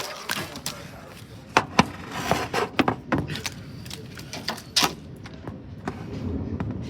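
A run of sharp knocks and clicks, the loudest about one and a half seconds in and again near five seconds, with a low rumble building near the end.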